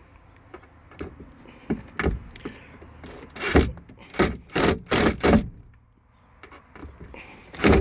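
Power drill run in short, harsh bursts against a stuck fastener whose head has broken off, the bit failing to bite. There are about eight bursts, most of them bunched in the middle.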